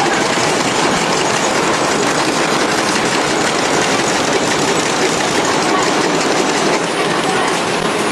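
Cookie-production machinery running: a loud, steady mechanical noise with a dense, even rattle.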